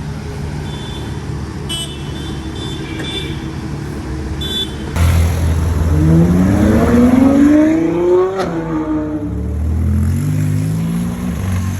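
Ferrari 812 Superfast's V12 with a Novitec Inconel exhaust: a steady low engine rumble, then about five seconds in it gets much louder as the engine note climbs under acceleration, drops sharply about eight and a half seconds in, and climbs again.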